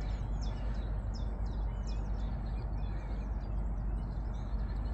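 Small birds chirping and twittering over a steady low rumble of wind noise.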